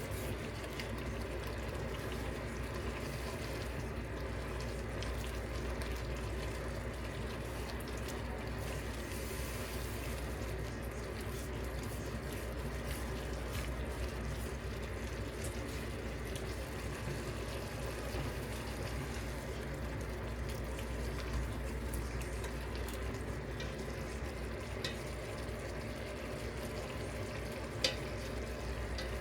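Food sizzling steadily in a hot pan or pot, with a couple of sharp clicks near the end.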